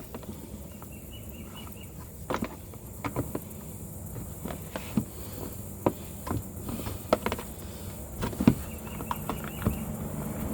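Scattered light clicks and knocks of car parts being handled, over a steady low hum. A short, high chirping comes twice, about a second in and near the end.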